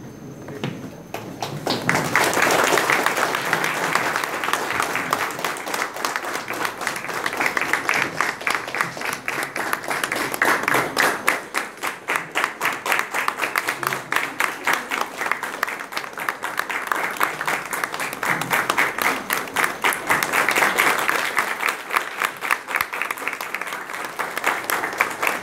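Audience applauding: many hands clapping together, starting about two seconds in and going on with small swells and dips.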